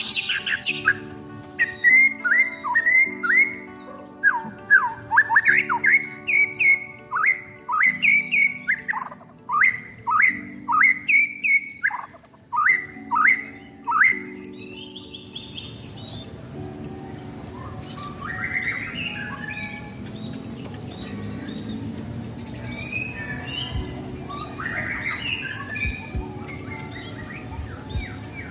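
White-rumped shama (murai batu) singing: a run of loud, repeated downward-sweeping whistles, about two a second. About halfway through it gives way to quieter, scattered twittering phrases.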